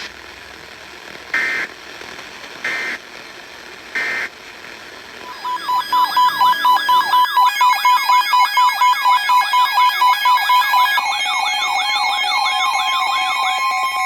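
Three short bursts of Emergency Alert System digital data tones, the end-of-message code of a weather radio warning. About five seconds in, a loud electronic alert tone starts: a warble sweeping up and down about three times a second over steady tones.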